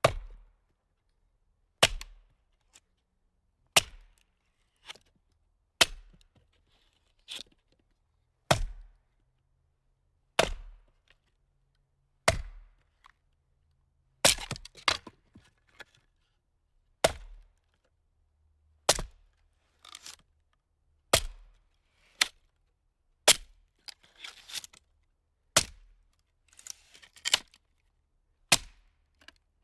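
Firewood being split: sharp, loud strikes about every two seconds, each followed by smaller cracks as the wood gives. Bursts of splintering and crackling come around the middle and again near the end.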